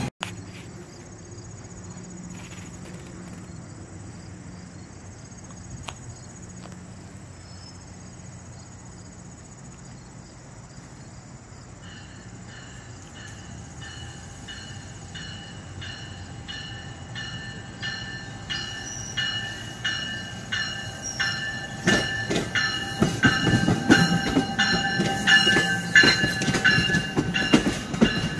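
An exo commuter train of bilevel coaches approaching and passing close, getting steadily louder. Its wheels click rhythmically over the rail joints, faster as it nears, under a steady high whine. Before the train arrives there is a faint steady insect buzz.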